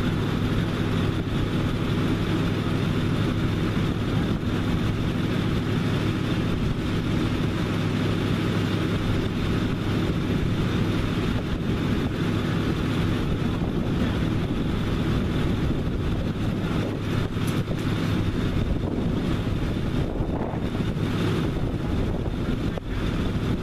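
Truck engine idling steadily, an even low hum that holds without change.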